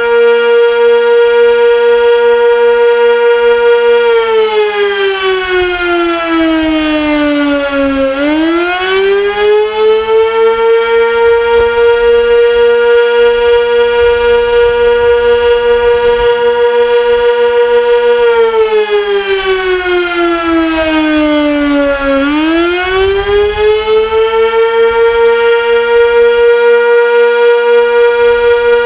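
Sentry 16V1T-B outdoor warning siren sounding a short attack signal. Its loud steady tone winds down partway over about four seconds, then quickly winds back up and holds. This happens twice, about fourteen seconds apart, and the level pulses regularly throughout.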